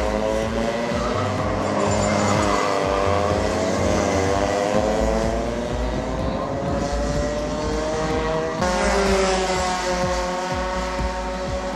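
Racing engine revving, its pitch climbing and falling as it accelerates and backs off. The sound changes abruptly about eight and a half seconds in.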